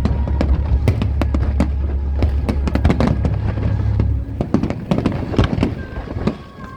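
Aerial fireworks bursting in quick, dense succession, with many sharp bangs and crackles. A low steady rumble runs underneath and stops about four seconds in.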